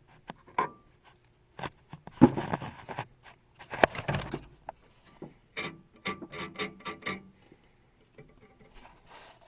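Tool and metal handling noise as the oil burner assembly's mounting fastener is tightened: scattered clicks, knocks and scrapes, with a quick run of about six regular clicks a little past the middle.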